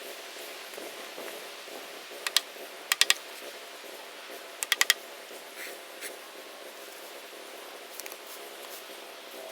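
Quick clusters of two to four sharp clicks or taps, heard four times, over a steady low hum.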